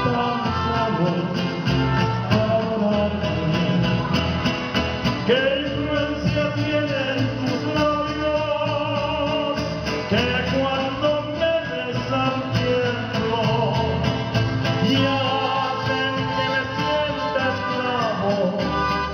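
Mariachi band playing live, with guitars and violins.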